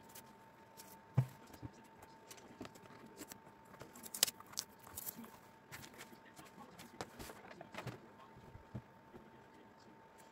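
Fabric being handled on a table: soft, irregular rustling and small knocks as the cloth is shifted and smoothed over a paper pattern, with two sharper knocks about a second and about four seconds in. A faint steady high hum runs underneath.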